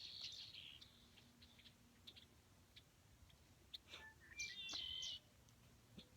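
Faint songbird chirps and twittering, with a short burst of notes at the start and a louder run of chirps about four and a half seconds in.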